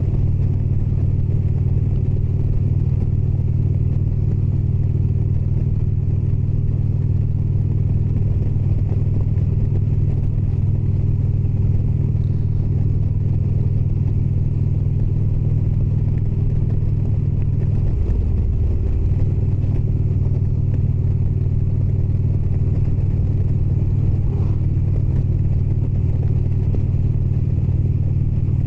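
Indian Springfield motorcycle's V-twin engine running steadily at road speed, with a brief shift in the engine note about two-thirds of the way through.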